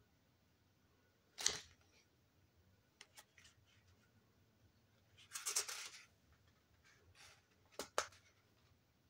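Pages of a paperback book being handled and turned: a few short paper snaps and flicks, with one longer rustle of pages a little past halfway.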